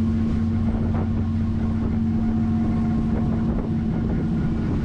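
Diesel engine of a Nordhavn 50 trawler yacht running steadily under way, a constant low drone with a steady hum.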